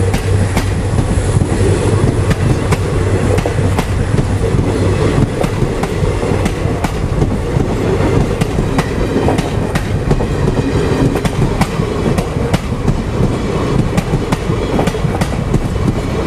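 Express train coaches passing close by, a steady rumble with an irregular stream of sharp clicks as the wheels run over rail joints. A low hum fades out in the first second or two.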